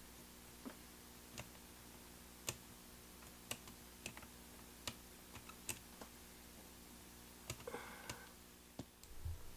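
Small irregular clicks and taps of a screwdriver and plastic parts as a pocket transistor radio's circuit board is worked loose from its case, with a short scraping rattle near the end. A faint steady hum runs underneath.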